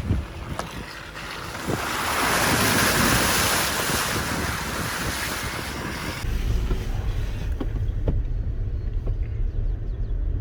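A vehicle driving through a shallow creek. Water rushes and splashes loudly against the tyres and underbody for about four seconds, then stops abruptly, leaving the low rumble of the vehicle rolling on.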